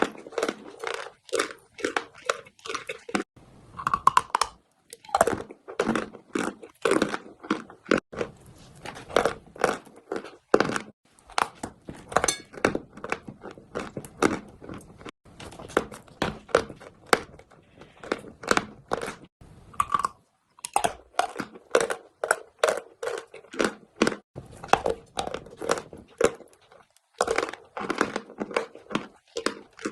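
Chalk being bitten and chewed close to the microphone: a dense, irregular run of sharp crunches with a few short pauses.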